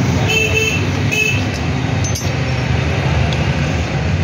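Steady low rumble of road traffic, with two short, high metallic rings in the first second and a single click about two seconds in.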